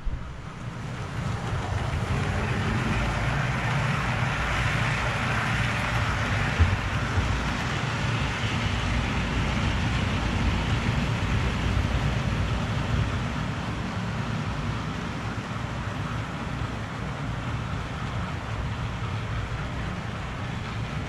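Model trains running on the layout's track: a steady running noise of wheels on the rails and the motors. It builds over the first couple of seconds and eases a little in the second half.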